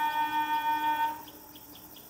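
Train horn: the end of a long, steady single-tone blast, which stops about a second in. Faint, regular high chirping follows.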